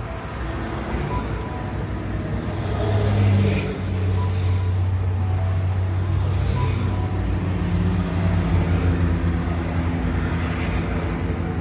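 Steady highway traffic: a continuous rush of tyres and engines with vehicles passing one after another, the loudest pass about three seconds in, with a low engine drone beneath.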